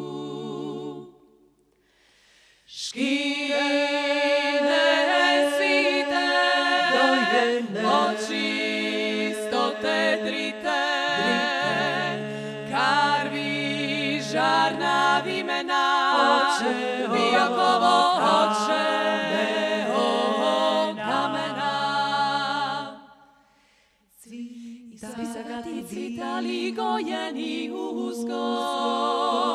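Women's klapa, a Dalmatian a cappella vocal group, singing in close harmony. Lower voices hold steady notes under the moving upper parts. A held chord ends about a second in, and after a short silence the singing starts again; it breaks off briefly near the end and resumes.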